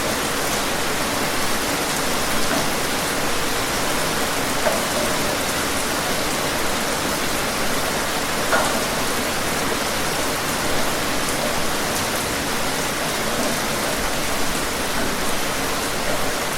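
Steady rain falling, an even hiss with scattered individual drops pattering on surfaces.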